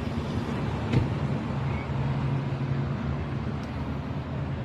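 Steady low rumble of a car or nearby road traffic, with a single short knock about a second in.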